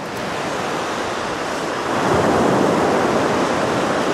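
Surf breaking and washing up the beach: a steady rush of water that swells louder about two seconds in.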